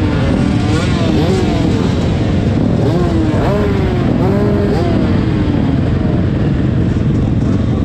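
Several motocross bikes running on the start line, their engines repeatedly rising and falling in pitch as the riders blip the throttles over a constant low rumble.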